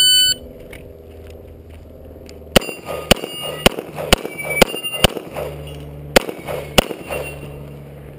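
A shot timer beeps once, briefly, then a Beretta 92A1 9mm pistol fires eight shots: six about half a second apart, then two more after a short pause. The hits leave steel targets ringing.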